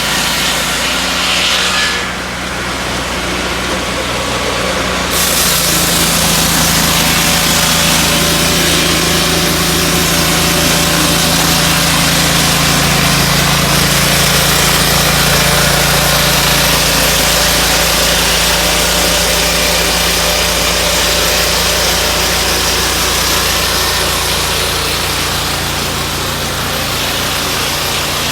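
Turbosawmill M10-22A portable sawmill's petrol engine running steadily while its saw blade cuts native hardwood. The engine note rises slightly and the hiss grows louder about five seconds in, then stays steady.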